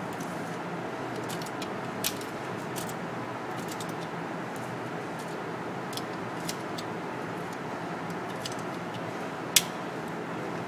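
Small scattered clicks and handling noises over a steady background hiss, with one sharper crack near the end.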